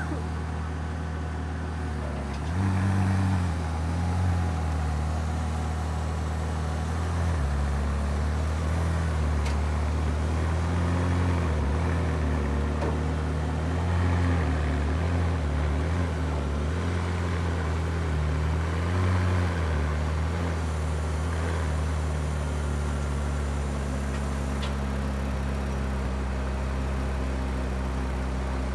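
A vehicle engine running at low revs, its pitch rising and falling slightly several times with light throttle.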